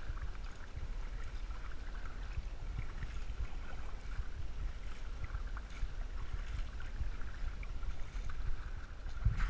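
Paddling a surfski on calm water: the paddle blades dipping and water moving along the hull, under a steady low rumble of wind on the microphone.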